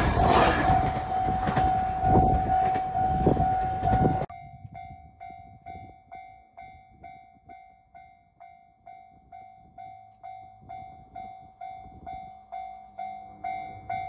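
A JR Kyushu electric train rushing past a level crossing, its noise loud over the crossing's warning bell. After a sudden cut about four seconds in, a Japanese level crossing's electronic warning bell rings steadily, about two dings a second, and near the end the low hum of an approaching train rises beneath it.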